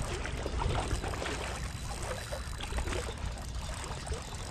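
River water lapping and trickling against a rocky bank, with many small irregular splashes over a steady low rumble.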